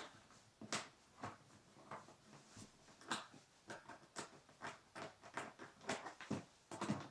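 Faint irregular clicks and taps, a few a second, with no engine running.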